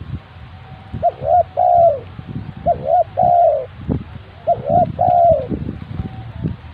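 Spotted dove (tekukur) cooing: three phrases in a row, each two short notes followed by a longer falling coo.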